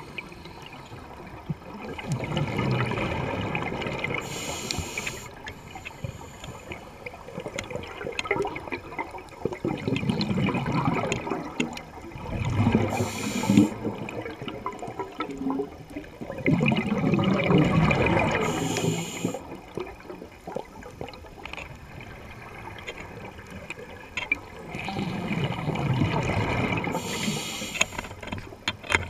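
Scuba diver breathing through a demand regulator underwater: a short hiss on each inhalation, then a couple of seconds of bubbling as the exhaled air escapes past the camera, about four breaths.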